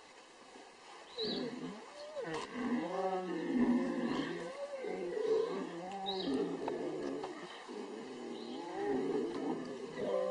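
Young lions calling while they rub against and nuzzle a person: a run of low, pitched moaning calls, one after another, starting about a second in.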